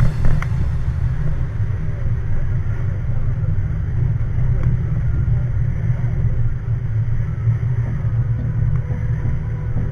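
Motorcycle riding a rough dirt road: a steady low rumble of the engine and ride, with a few faint knocks.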